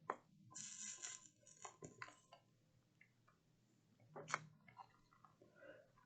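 Near silence broken by a few faint clicks and taps, the loudest about four seconds in, and a brief soft hiss about half a second in.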